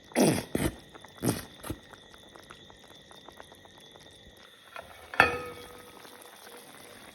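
Plastic ketchup bottle squeezed over the pot, giving several short sputtering squirts that fall in pitch in the first two seconds. About five seconds in, one sharp metal clank rings briefly.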